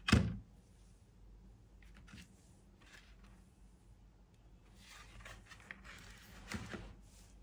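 Stiff paper and card rustling and crinkling in short, faint bursts as a folded, layered paper pop-up card is opened out and stood upright. There is one sharp tap at the very start.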